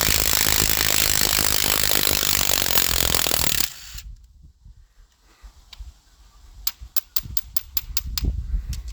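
A power tool runs loudly for nearly four seconds and stops suddenly, while bolts are being taken off an engine during teardown. Later comes a quick, even run of about eight light metallic clicks.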